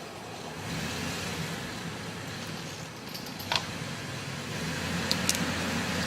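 An engine running steadily at an even speed. A brief high squeak about three and a half seconds in.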